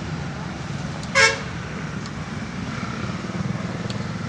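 A single short vehicle horn toot about a second in, over a steady low rumble of road traffic.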